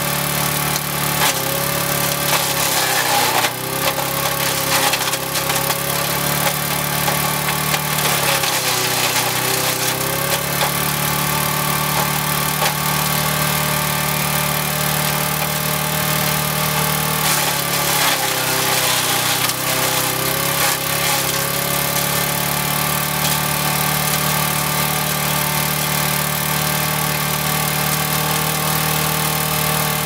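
Old rotary lawn mower's small single-cylinder engine running flat out as a wood chipper, its blade chopping branches fed down a funnel into the deck, with sharp cracks of wood being cut. The engine sags in pitch under the load about three times and picks up again.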